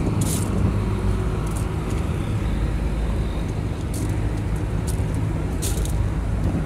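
A large engine running steadily nearby, a low even hum, with a few footsteps crunching on gravel.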